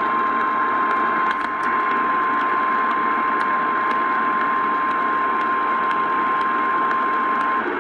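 NOAA Weather Radio 1050 Hz warning alarm tone: one steady, unwavering beep held for several seconds over heavy radio static hiss with scattered crackles, cutting off shortly before the end.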